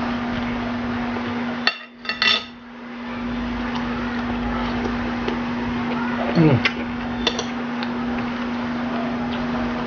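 Spoon and cutlery clinking against a bowl and plate while eating, with sharp clicks near two seconds in and again around seven seconds. A steady hum runs underneath, and a short falling voice-like 'mm' comes about six seconds in.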